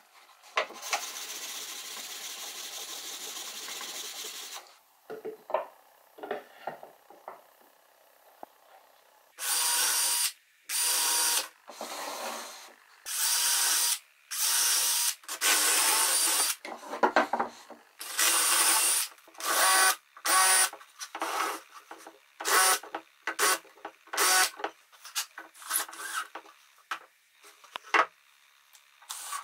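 Cordless drill-driver running into wood in many short bursts, one after another with brief pauses. At the start there is a steady hiss for about four seconds, followed by a few light clicks.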